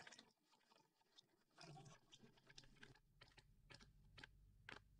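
Near silence: faint room tone with soft, irregular taps of footsteps on a hard floor, more frequent in the second half.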